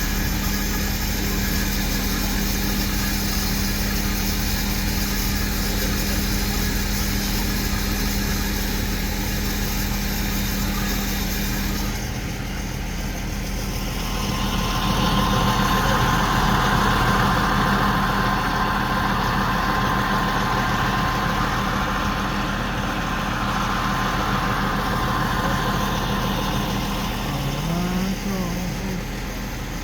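The big crane's engine running steadily, with a stretch of added hissing noise swelling up through the middle.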